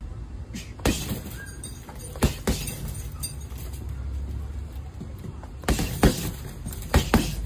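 Boxing gloves punching a hanging heavy bag: about seven sharp thuds at irregular intervals, some in quick pairs, over a steady low rumble.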